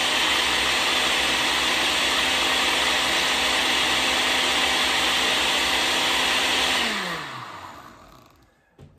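Countertop blender with a glass jar running steadily, churning a thick green smoothie made without water. About seven seconds in it is switched off and its motor hum slides down in pitch and fades as it spins down.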